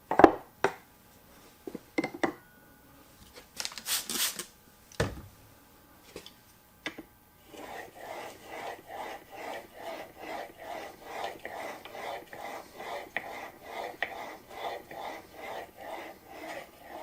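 Plane blade being honed on a sharpening stone: a few knocks and clicks and a short hiss at first, then steady back-and-forth rubbing strokes, about two a second, from about seven seconds in.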